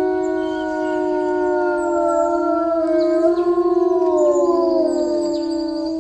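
A chorus of long, overlapping howls, several voices held at steady pitches that slowly bend and glide in the middle, with faint bird chirps above.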